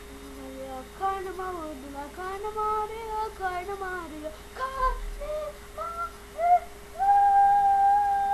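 A boy singing in a high voice: short rising and falling phrases, then one long held note from about seven seconds in.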